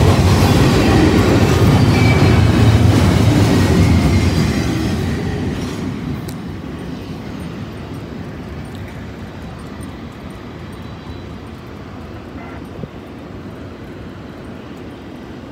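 Double-stack intermodal freight cars rolling past on the rails, wheels on steel, as the end of a Norfolk Southern train goes by. The sound fades away over a few seconds, starting about four seconds in, as the train moves off, leaving a faint steady background.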